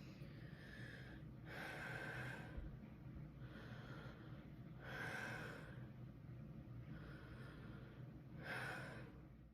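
A person taking three deep breaths in and out through the mouth: six rushes of air about a second each, in three pairs, the first of each pair softer than the second.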